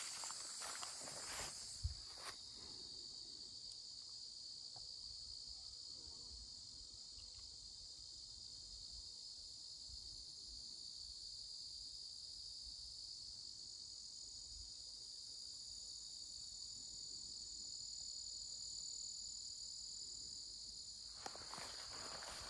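Steady, high-pitched chorus of crickets. Footsteps swishing through grass in the first two seconds, with a single thump just before they stop, then again near the end.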